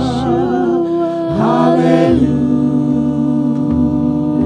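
Worship song being sung: long held sung notes with vibrato over a sustained low accompaniment, the chord shifting about two seconds in.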